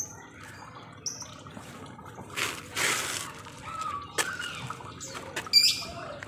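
Lovebirds chirping and chattering: short high chirps, a harsher noisy squawk a little before the middle, and a sharp high call near the end.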